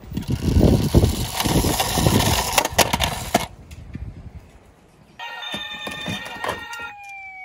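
Small die-cast toy cars rolling and clattering down a plastic toy slope, a run of rattles and clicks that stops about three and a half seconds in. From about five seconds in, a toy's electronic sound effect plays steady beeping tones, and near the end it turns into a siren wail sliding down in pitch.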